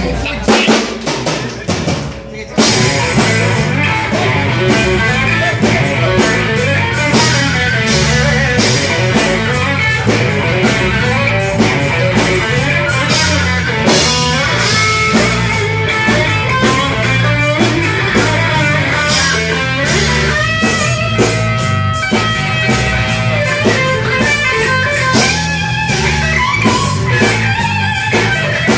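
Rock band playing live: electric guitar over drum kit. The first couple of seconds are broken and uneven, then the full band comes in together and plays on steadily.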